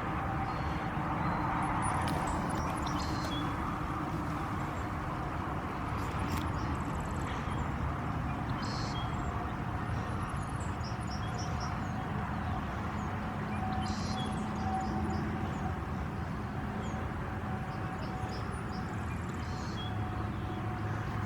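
Steady drone of a distant small plane's engine over outdoor background noise, with a few faint high chirps.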